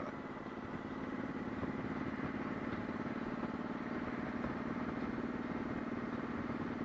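Motorcycle engine running steadily, with an even, unchanging level.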